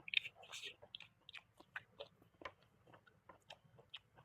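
Close-up eating sounds: mouth-full chewing with wet smacks and small clicks, irregular and faint, of a person eating noodles with rice and fish.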